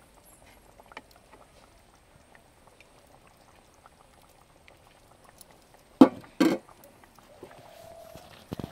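Fish curry being ladled from a steel pot into a small steel bowl: soft pouring and dripping of the thin gravy, then two loud metal clanks about half a second apart, about six seconds in, as the steel ladle knocks against the pot.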